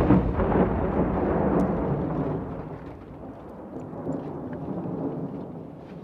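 Rumbling tail of an explosion sound effect, fading steadily over the first three seconds, then a low rumble that swells slightly again about four seconds in, with a few faint scattered crackles.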